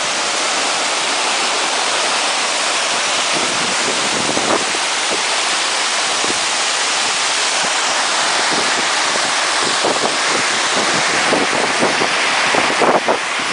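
Waterfall rushing steadily close by, with a few short knocks and scuffs in the last few seconds.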